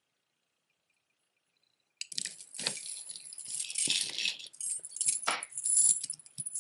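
Silence, then from about two seconds in a long gold-tone metal link chain jangles and clinks as it is handled and laid out.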